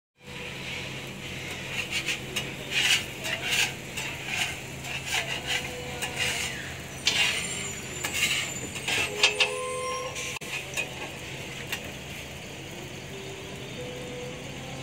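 Food-stall handling sounds: irregular clicks and short spluttering squirts as sauce is squeezed from plastic squeeze bottles onto burgers in foam boxes, busiest in the first ten seconds, over a steady low hum.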